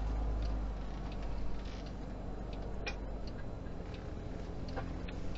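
Faint, regular ticking, about three ticks every two seconds, over a steady low rumble.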